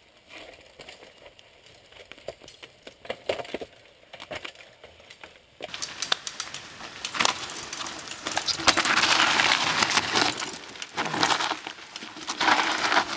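Dry leaves and loose stones crunching and crackling on a rocky trail. Scattered clicks at first, then from about halfway a louder, denser crackle with several surges.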